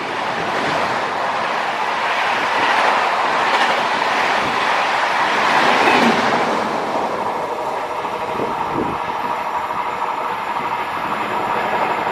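Express train running past at speed: a steady rush of wheels on the rails that builds to its loudest about six seconds in, then eases off.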